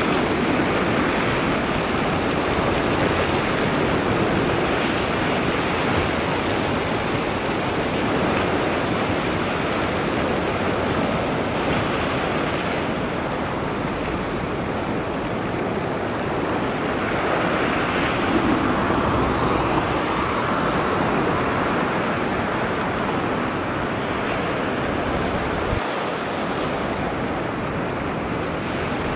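Surf washing up a sandy beach, a steady rush of small waves with some wind on the microphone.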